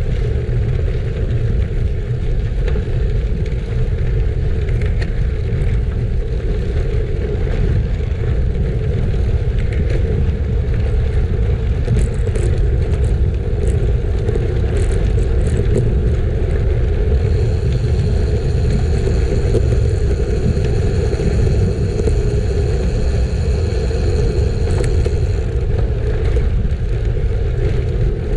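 Steady rumble of a road bike's tyres rolling over gravel, under heavy wind noise on the microphone. A thin, steady high whine joins in after about the middle and stops a few seconds before the end.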